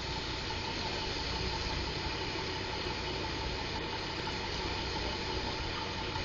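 Steady low rumble of motor-vehicle engines in street traffic, with a faint steady whine above it.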